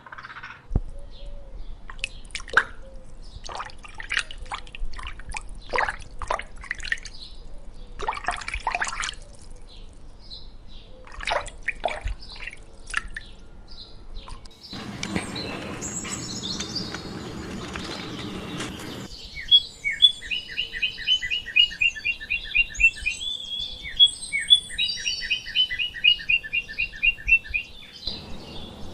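Birds chirping and calling: a run of sharp chirps, a few seconds of hissy noise, then two phrases of fast, evenly repeated trilled notes.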